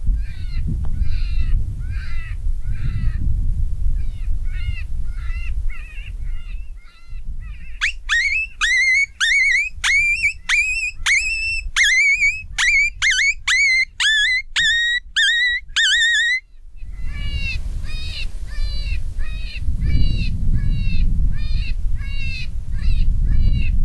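Repeated shrill, bird-like cries with a falling-then-rising squeal, one or two a second, over a low rumble of wind on the microphone. They are loudest and most spaced out through the middle, stop abruptly, then carry on fainter and quicker.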